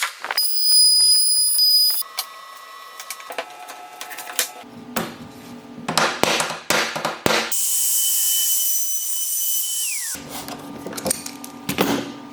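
Woodworking power tools in short separate runs, with sharp knocks of wood between them. Near the end a high-pitched tool runs steadily for about two seconds, then its whine falls as it winds down.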